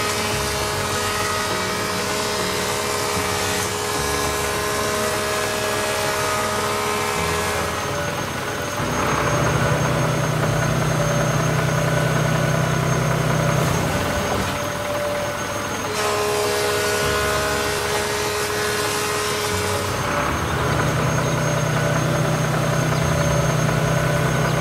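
Cartoon engine sound effect of a machine carrying a circular saw blade, running steadily. Its note shifts back and forth every few seconds between a higher hum and a deeper drone.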